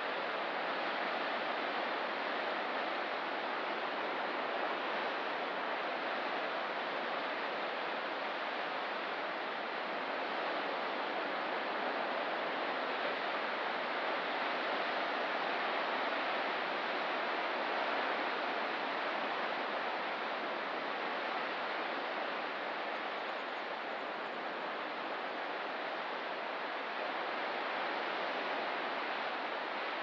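Ocean surf washing steadily, an even hiss with no single breaking wave standing out.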